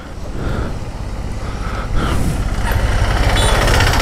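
Honda Hornet 160R's single-cylinder engine pulling away from a stop and gathering speed, getting louder about two seconds in, with wind noise on the microphone building as the bike speeds up.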